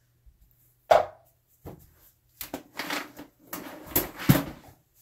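Things being moved and set down on a counter while it is cleared: a sharp knock about a second in, then a run of clatters and rustles, loudest around four seconds in.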